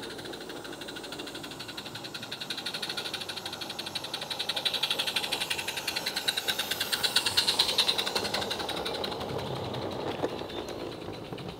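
A 16mm-scale live-steam model tank engine, built on a Roundhouse Billy chassis with a Lady Anne boiler, chuffing rapidly and evenly as it hauls coaches past. It grows louder to a peak about seven to eight seconds in, then eases off a little.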